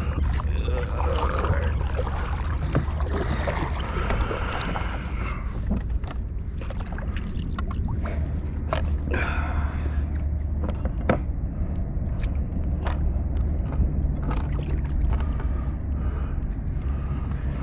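Handling noise on a plastic fishing kayak on the water: a steady low rumble with scattered sharp knocks and clicks as the paddle and fishing gear are moved against the hull.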